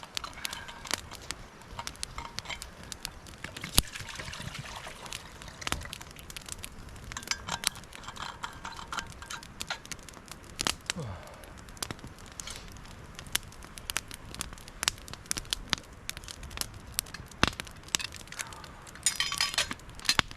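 Wood campfire crackling, with irregular sharp pops and a few louder snaps. Twice there is a short spell of clinking.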